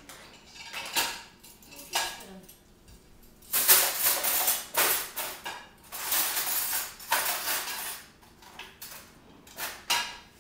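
Dishes and cutlery clinking and clattering as a dishwasher is unloaded: a few single clinks, with a busy run of clatter in the middle.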